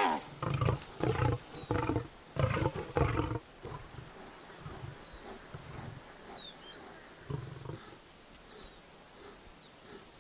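Lions roaring in a fight with hyenas: about six rough, low roars in quick succession over the first three seconds or so, then a lull and one more roar a little after halfway. Faint bird chirps come in the lull.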